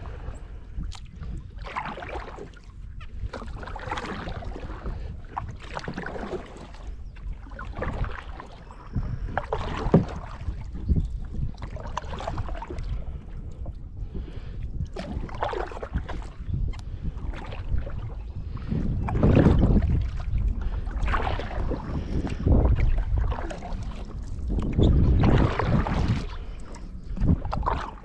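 Kayak paddle dipping and splashing in the water in repeated strokes, with a low wind rumble on the microphone.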